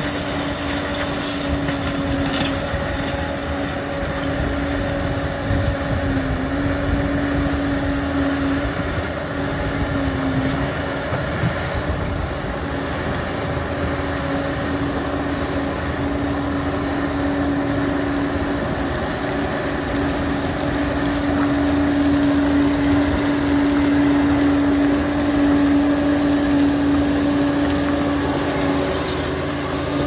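Liebherr PR 746 crawler dozer working: a steady heavy diesel engine drone with a constant hum, getting a little louder about two-thirds of the way through.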